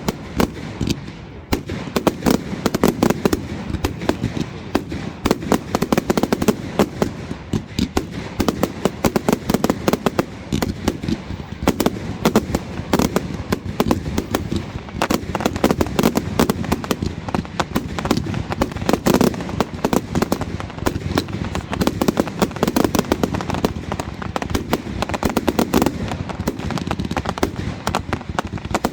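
Fireworks display going off in a dense, unbroken barrage of sharp bangs and crackling, with deeper booms swelling in every few seconds.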